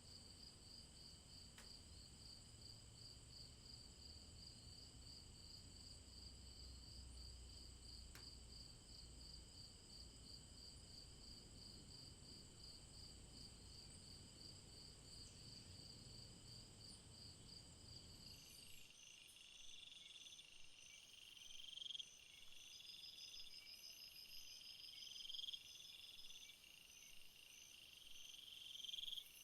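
Faint chorus of night insects such as crickets: a fast, even trill over steady high-pitched ringing. About 19 seconds in, the recording changes abruptly to a different insect chorus, with a call repeating every three to four seconds and a quicker, regular high chirp.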